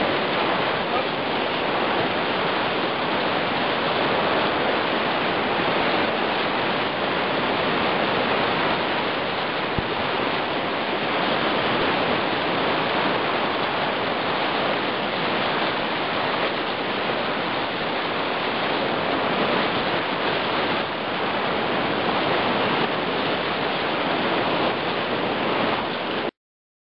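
Steady rushing of churning white water at a power plant's cooling-water outlet, heard close up. It cuts off abruptly near the end.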